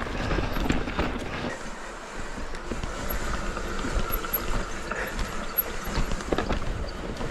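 Mountain bike riding down a dirt trail: tyres rolling over loose dirt and rocks, with scattered knocks and rattles from the bike and wind rushing over the microphone.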